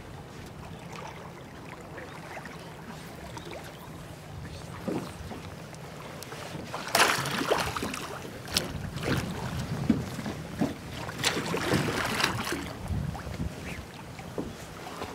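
Drift boat oars dipping and pulling through river water, with wind rushing on the microphone. About seven seconds in, the oar strokes turn into a run of louder, irregular splashes.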